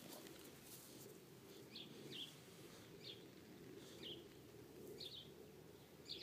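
Faint bird chirping: short, high calls that drop slightly in pitch, repeating roughly once a second over quiet outdoor background.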